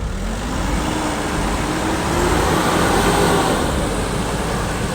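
Vehicle engine revving up under load, its pitch rising over the first two seconds or so and loudest about three seconds in, over a steady low rumble.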